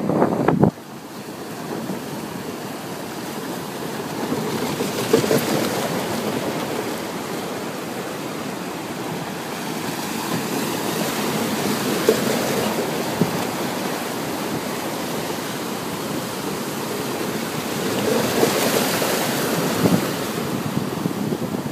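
Sea waves breaking against and washing over a floating plastic pontoon pier, a steady wash that swells in surges every six or seven seconds. It opens with a loud burst of wind on the microphone that cuts off abruptly within the first second.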